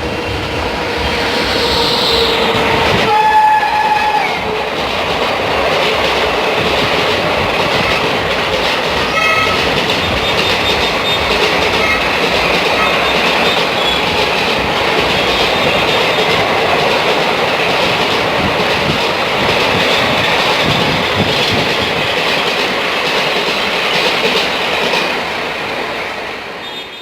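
The horn of a WAP-5 electric locomotive gives a long blast and then a shorter one at a different pitch in the first few seconds. After that the locomotive and the coaches of an express train run past with a loud, steady rushing noise that fades near the end.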